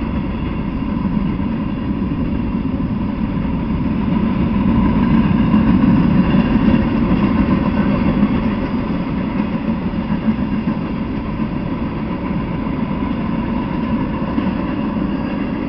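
Freight train of tank cars and a covered hopper rolling past, a steady rumble of steel wheels on the rails. It is loudest about six seconds in and eases off over the last few seconds.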